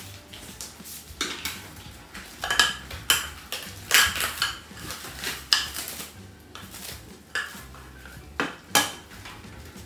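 Metal kitchen scissors clinking and clattering against a small ceramic bowl as they are handled, a string of irregular sharp clinks.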